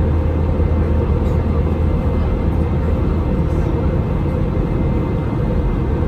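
Steady cabin noise of an Airbus A321 in flight: a constant low rush of airflow and engines with a deep hum underneath.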